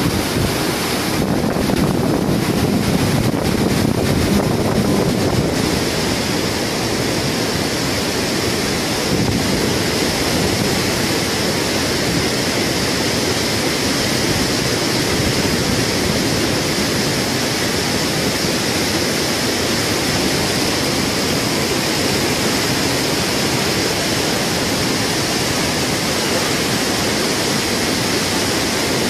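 Loud, steady rush of a fast-flowing river running through rapids.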